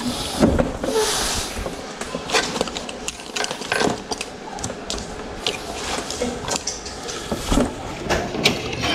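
A run of irregular, sharp clicks and knocks, about eight in all, over steady room noise.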